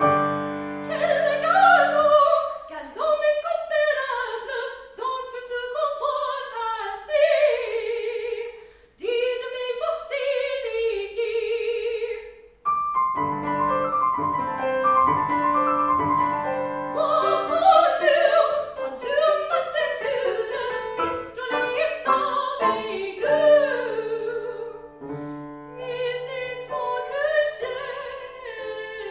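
Classical singer performing an operatic song with piano accompaniment, the voice gliding and wavering in long held phrases over sustained piano chords; the music starts suddenly at the beginning.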